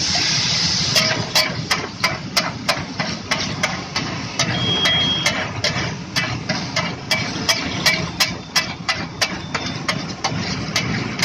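Water on a hot pau bhaji tawa sizzling loudly for about the first second. Then a flat metal spatula strikes and scrapes the griddle about two to three times a second as the bhaji is mashed and stirred, over a steady low rumble.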